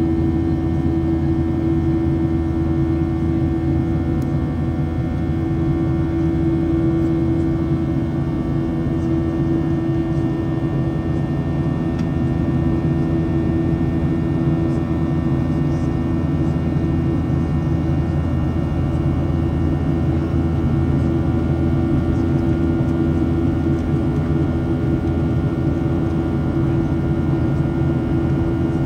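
Boeing 737-700's CFM56-7B jet engines and rushing airflow heard inside the passenger cabin: a loud, steady drone with a constant low hum.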